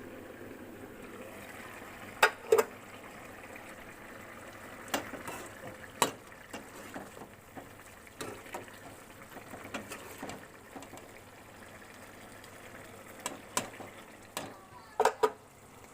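Curry cooking in a pan, a steady faint hiss, with a metal spoon striking the pan sharply several times. The loudest strikes come about two seconds in and again near the end.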